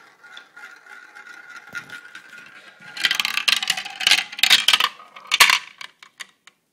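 Glass marble rolling around a plastic funnel with a faint steady whirr, then from about three seconds in loud clattering as it rattles down the plastic track and drops into a bin among other marbles.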